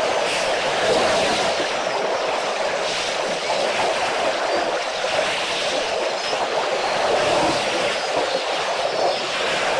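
Water splashing and sloshing as a herd of African elephants wade and bathe, heard as a steady rushing noise with no calls.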